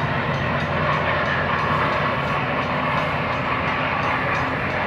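A train rolling past close by: a steady rumble and rush of wheels on the rails, with faint regular clicks from the wheels over the rail joints.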